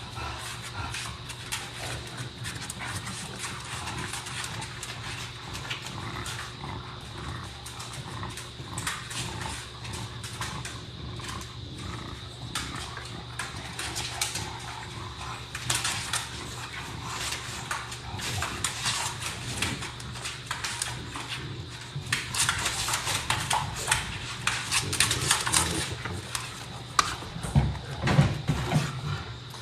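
Several bulldogs playing together: a run of short dog noises and scuffles over a steady low hum. It grows busier and louder about three-quarters of the way through.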